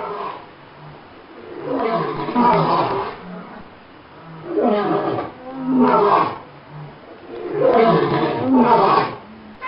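A large wild animal calling loudly in three bouts about three seconds apart, each bout rising and falling twice.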